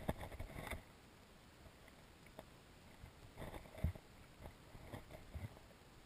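Faint knocks and taps from a GoPro in its waterproof housing under water, shifting against the lake bottom. They come in clusters: in the first second, around the middle with the loudest thump, and again about five seconds in.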